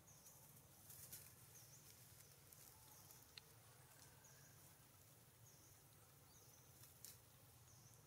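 Near silence: faint outdoor ambience with a high chirp repeating about once a second, and a few soft clicks.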